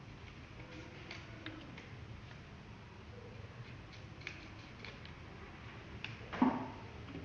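Scissors snipping paper slips, a scatter of small clicks, then one louder knock about six seconds in.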